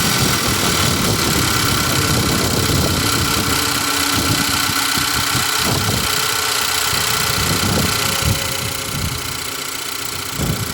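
VW 2.0 TSI turbocharged four-cylinder engine idling steadily just after starting, now running smoothly with its misfire cured by replacing two faulty ignition coils. The idle settles a little quieter near the end.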